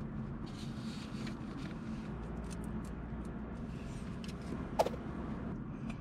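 Steady low rumble of road and engine noise inside a moving car's cabin, with faint small ticks scattered through it and one sharp click a little before the end.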